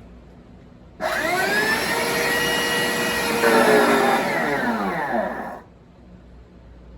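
Hoover SmartWash carpet cleaner switched on: its motor whine rises as it spins up, runs loudly for about four seconds, grows louder a little past the middle, then falls in pitch and dies away as it is switched off. The noise is one the technician takes for a failing motor.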